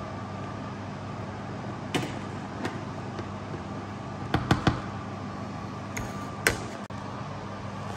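Metal spoon scraping and knocking against a plastic tub while turning a crumbly lentil köfte mixture: a handful of sharp clicks, three in quick succession about halfway through. A steady background hum runs underneath.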